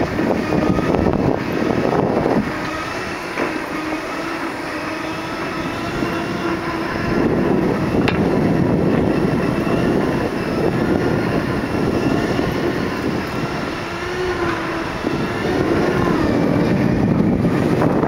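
Segway personal transporter's electric drive whining in several steady tones that drift up and down in pitch as its speed changes, over a rough rumble of wind and wheels.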